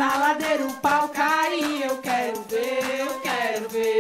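Music: a woman singing a melody, with nothing in the bass underneath.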